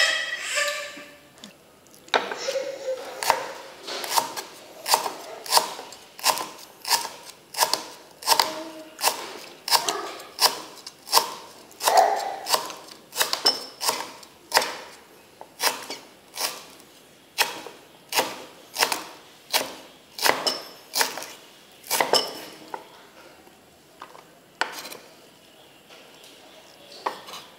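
A large kitchen knife chopping green onions on a wooden cutting board: sharp knocks of the blade through onto the wood, about one and a half a second, stopping about three quarters of the way through, with a few scattered strokes after. There is a louder single knock at the very start.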